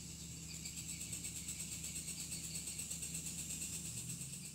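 Faint background sound: high-pitched insect chirping that pulses fast and evenly, about seven times a second, over a low steady hum.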